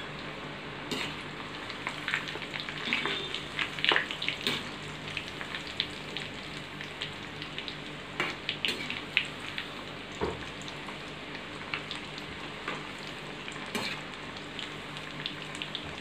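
Breaded chicken nuggets deep-frying in hot oil in a kadai: a steady sizzle with many small crackles and pops, as a metal utensil turns the pieces in the oil.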